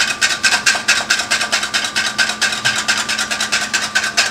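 Wire whisk beating egg yolks fast in a stainless steel bowl set over a pot on the stove, a loud, even scraping of wire on metal at about six strokes a second. This is the first stage of hollandaise sauce: the yolks are whisked over the heat to cook them lightly.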